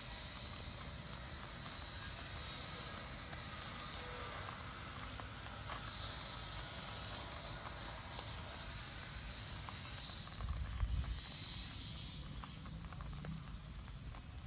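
Wood fire hissing with scattered crackles as fish grill in bamboo clamps over the embers. A steady low rumble sits underneath, with a brief louder low rumble about ten and a half seconds in.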